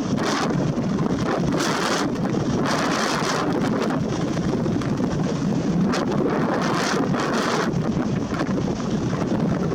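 Gale-force storm wind blowing hard and without a break, with stronger gusts surging twice.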